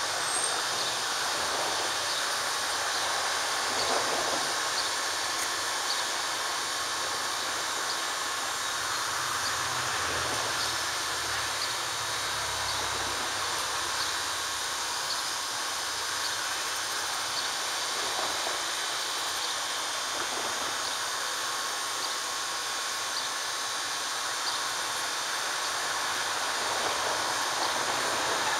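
Standing steam locomotive at idle, giving a steady hiss, with a low rumble that swells about a third of the way through and fades a few seconds later.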